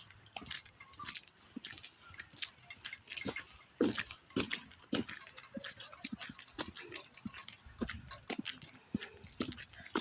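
Footsteps crunching through wet snow, a dense run of short irregular crunches and clicks several times a second.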